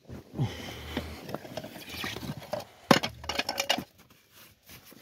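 Supplies rattling and clinking inside a white plastic bucket as it is tipped and rummaged through, with one sharp knock about three seconds in.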